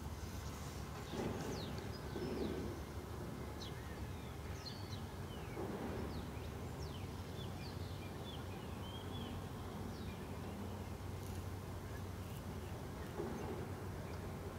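Small birds chirping in many short, quick calls over a steady low background hum.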